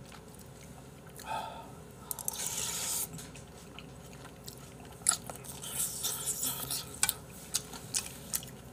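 A person slurping a spoonful of potato sujebi soup, a short slurp about two seconds in, then chewing with scattered sharp clicks.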